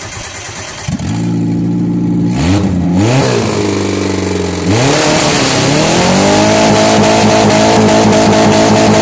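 Hyundai car engine running, blipped a few times, then about five seconds in revved hard and held at high revs.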